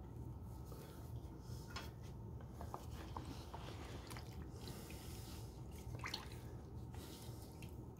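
Faint drips and small wet splashes of liquid sealer as a black tray is dipped, wiped with a soaked cloth and lifted in a plastic tub, with scattered light handling clicks over a low steady background hum.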